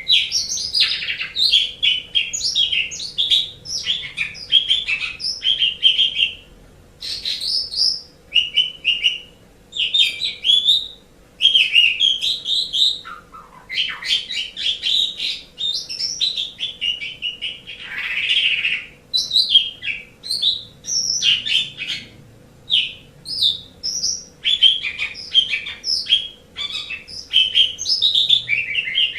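Jalak suren (pied starling) singing on and on: a varied run of quick chattering notes and gliding whistled phrases, broken by short pauses.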